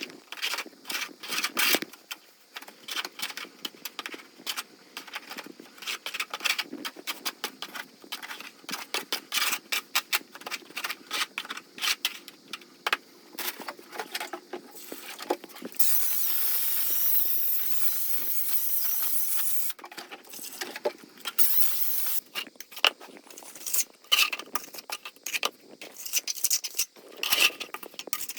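Rapid, irregular clinks, taps and scrapes of hard objects. A steady hiss runs for about four seconds past the middle, and a shorter one follows.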